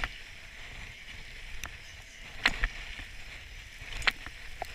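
Skis shuffling and sliding on fresh snow with a steady hiss, broken by several sharp clicks and knocks of ski gear, the loudest about two and a half and four seconds in.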